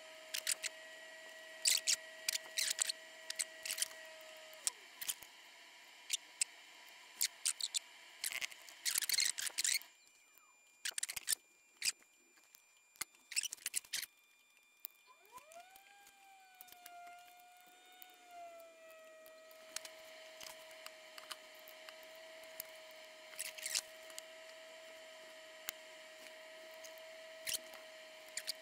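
Small sharp clicks and taps of metal tweezers and a soldering iron tip against a circuit board while a tiny surface-mount capacitor is placed and soldered. A faint steady whine runs underneath, drops away about four seconds in and comes back with a rising glide about fifteen seconds in.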